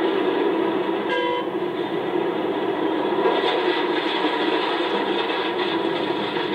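Komatsu PC650-5 hydraulic excavator's diesel engine working hard and steadily while it loads dump trucks, with a short horn toot about a second in.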